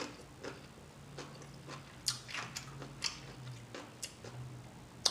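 Close-up wet mouth sounds of someone chewing food with the mouth open: sharp lip smacks and clicks, irregular, about one or two a second, over a low steady hum.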